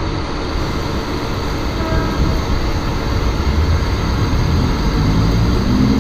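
Mumbai suburban EMU local train starting to pull out of a station, heard from its open doorway: a steady rumble and hum, with the traction motors' whine beginning to rise in pitch from about five seconds in as the train accelerates.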